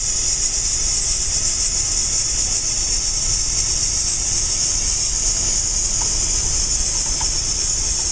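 VEX tank-tread robot driving itself over concrete: its motors and plastic treads give a steady, high-pitched whirring hiss over a low rumble.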